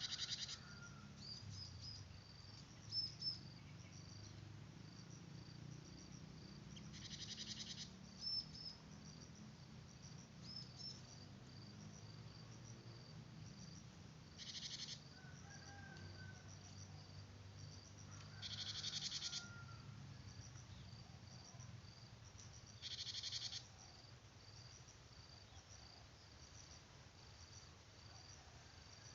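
Crickets chirping steadily with scattered short high bird chirps. Four separate pulsed buzzing trills, each about a second long, stand out over them.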